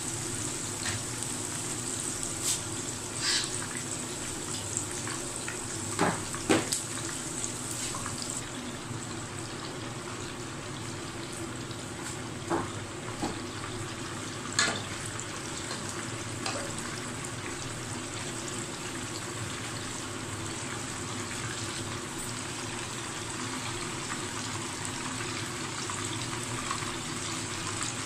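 Beef chapli kababs frying in hot oil in a pan: a steady sizzling hiss. Over the first half come a few sharp clicks and pops, with a spatula touching the pan.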